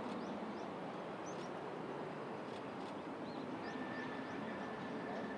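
Small birds chirping now and then over a steady background rumble. A faint steady high tone comes in a little past halfway.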